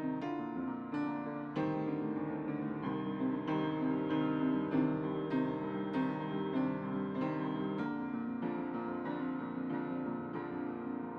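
Solo piano music, notes and chords struck about every half second and left to ring. The playing thins out and grows softer over the last few seconds.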